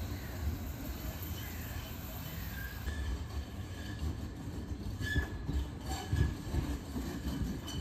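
Tram running on its rails: a steady low rumble with brief high wheel squeals, and a few clicks over the track about five to six seconds in.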